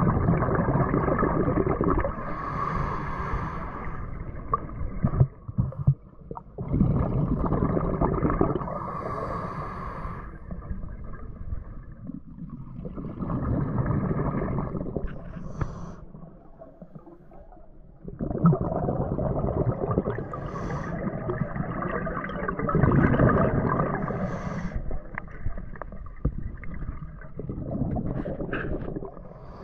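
Scuba regulator breathing heard underwater: slow cycles of inhaling and exhaling, with bursts of exhaust bubbles every few seconds.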